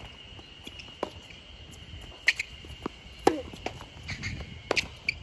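Tennis rally on a hard court: a string of sharp ball strikes and bounces at uneven intervals, with the players' footsteps, over a steady high-pitched insect drone.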